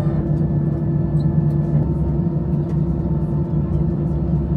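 Steady low hum inside the cabin of an Airbus A320 sitting at the gate. A faint high tone fades out about two seconds in, and another faint tone comes in near the end.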